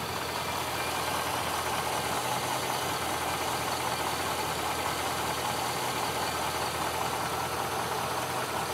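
Chevrolet Silverado Z71's Vortec engine idling steadily, with no rattle or knock standing out: the owner hears nothing too alarming at idle.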